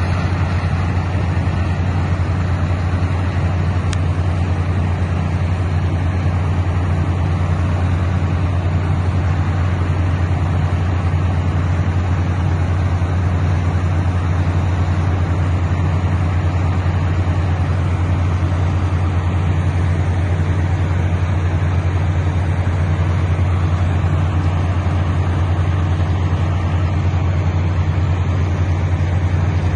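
Water well drilling rig running steadily: a constant low engine drone with a rushing hiss of compressed air blasting muddy water and cuttings up out of the borehole.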